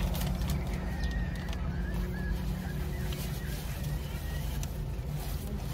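Steady low rumble inside a parked car, with faint scattered clicks and a brief high chirp about a second in.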